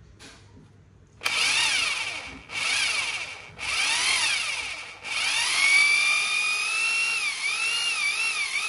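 Corded SDS rotary hammer drill running free with no bit load, in four separate runs. Its motor whine rises and falls in pitch as the variable-speed trigger is squeezed and eased. The last run, from about five seconds in, is the longest and wavers up and down near the end.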